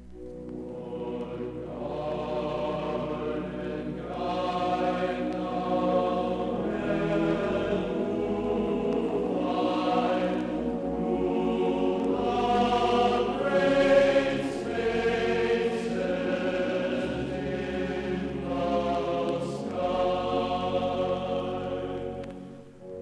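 Slow choral music: a choir singing sustained, chant-like chords over a low drone, swelling up in the first few seconds and peaking about two-thirds of the way through.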